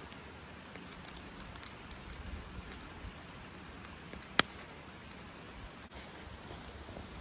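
Wood campfire crackling under a steak grilling on a grate: a steady low hiss with scattered sharp pops, the loudest about four seconds in.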